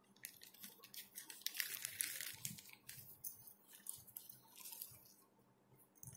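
Faint crinkling and rustling of small plastic packets from a tubeless tyre puncture repair kit being handled, a run of quick crackles that is densest about two seconds in.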